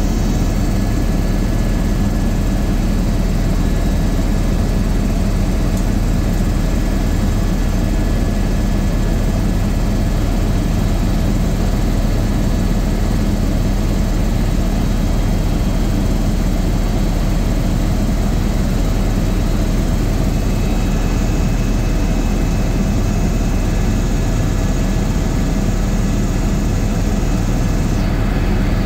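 Helicopter in flight heard from inside the cabin: a loud, steady drone of rotor and engine, with a few faint steady whining tones over it.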